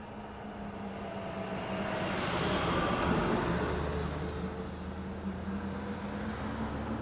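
A car driving past: it grows louder to a peak about three seconds in, then fades away, and the engine's pitch drops as it goes by.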